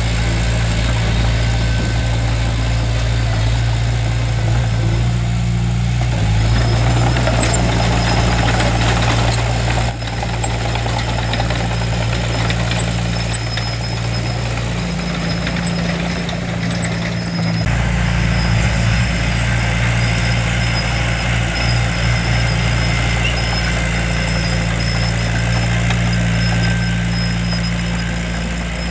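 Diesel engine of heavy construction equipment running steadily at a low idle, its note shifting abruptly a couple of times.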